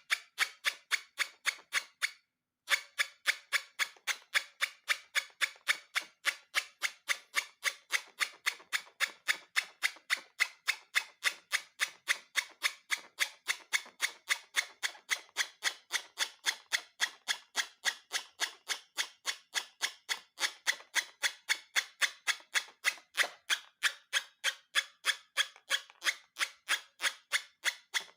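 A steady, even series of sharp clicks, about three or four a second, broken by a brief total silence a little over two seconds in.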